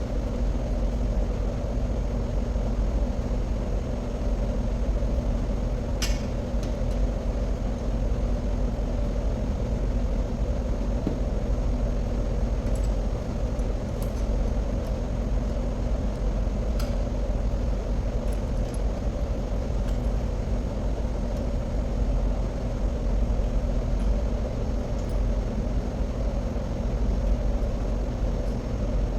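Steady low rumble and hum of an underground hydroelectric powerhouse's machinery, with a few sharp clicks over it.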